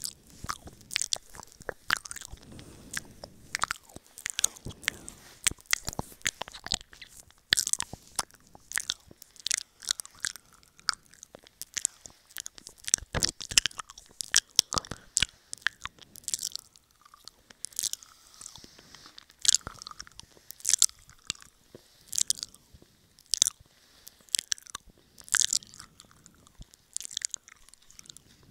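Close-up wet mouth sounds for ear-eating ASMR: irregular sharp smacks and clicks, several a second, made right against a wired earphone microphone held at the mouth.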